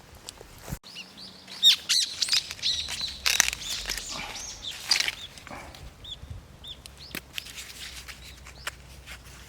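Small birds chirping and singing: a dense run of quick, pitch-sliding chirps in the first half, thinning to scattered single chirps later.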